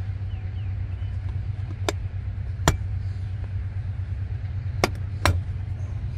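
Four sharp plastic clicks as a seat trim panel is pried loose from its clips, over a steady low hum.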